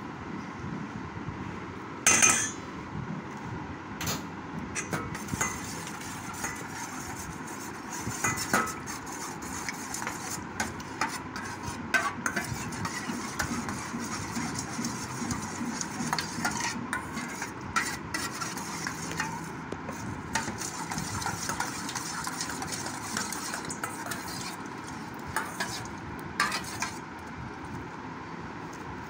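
Metal spoon stirring a thin liquid marinade in a stainless steel bowl, clinking against the sides again and again, with one sharp knock about two seconds in.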